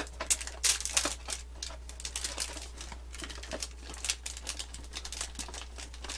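Clear plastic wrappers being peeled off individually wrapped macarons, with cardboard packaging handled at the same time: irregular short crinkles and crackles, loudest about a second in.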